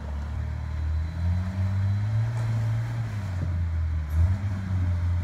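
Off-road vehicle's engine running low and rumbling, its pitch rising and falling as it is revved gently over rough ground, with a single clunk about four seconds in.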